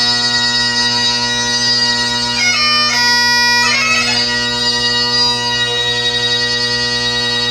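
Great Highland bagpipe playing: steady drones under the chanter melody, with quick flurries of grace-note embellishments about two and a half and four seconds in.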